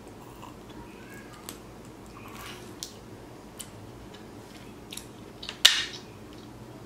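Close-up eating sounds of crab legs being eaten: soft chewing with a few short wet clicks and smacks, and one sharper snap a little after five seconds in.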